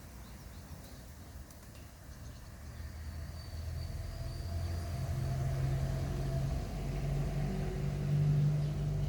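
A vehicle engine rumbling, with a low steady hum that grows louder over the first several seconds and then holds.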